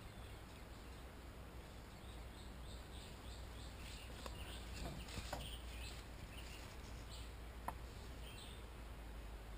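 Faint bird calls: a quick run of short, high chirps through the middle, a few more near the end, with a few light clicks, one sharper near the end.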